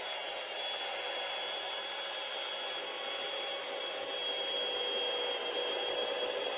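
Power drill running steadily with a constant high whine as it cuts a hole through an aluminium 3D printer bed plate, growing a little louder about four seconds in.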